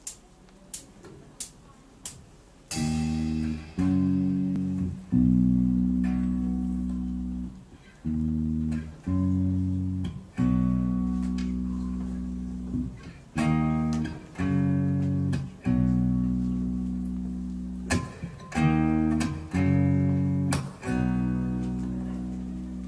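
Live band's instrumental intro: four evenly spaced clicks, then guitar and bass chords struck in a steady rhythm, each ringing and fading before the next.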